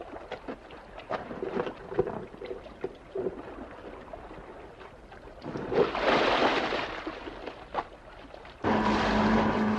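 Diving gear knocking and bumping on an inflatable boat, then a splash about six seconds in as a scuba diver drops over the side into the sea. Near the end a boat engine's steady hum starts abruptly.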